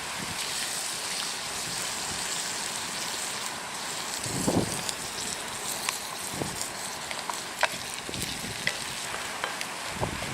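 Food frying in a pan over a wood fire: a steady sizzling hiss with scattered sharp crackles. A couple of dull knocks sound in the middle.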